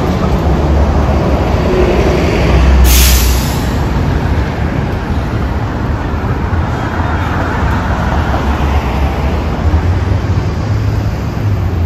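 City street traffic, including a city bus, heard over a low rumble on the phone's microphone while walking. About three seconds in, a short sharp hiss like a bus's air brakes releasing.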